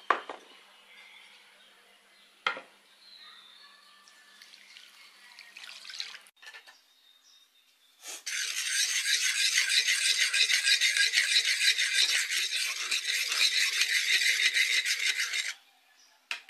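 Fast, rhythmic scraping and rubbing that starts suddenly about eight seconds in, lasts about seven seconds, then stops. Two sharp knocks come before it, near the start and about two and a half seconds in.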